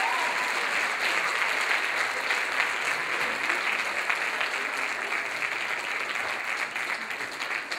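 Theatre audience applauding, a dense steady clapping that begins to thin out and fade near the end.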